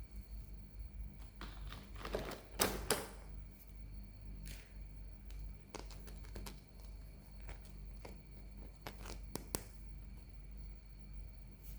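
Scattered clicks and taps of a plastic clockwork chick toy being handled, loudest in a cluster about two to three seconds in.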